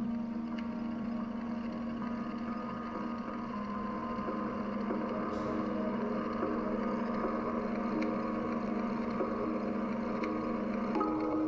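Steady low drone of several held tones over a faint hiss, its tones shifting shortly before the end.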